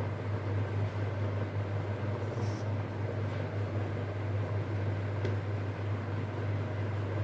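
Electric steam vaporizer running, making a steady low hum with a faint hiss as it puts out steam.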